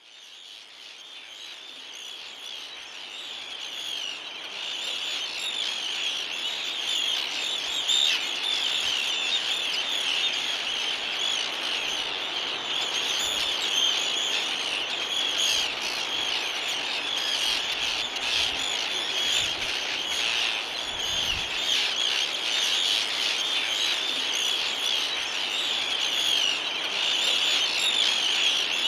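Tern colony, mainly Arctic terns, calling without pause: a dense chorus of many overlapping high calls, fading in over the first few seconds and then holding steady.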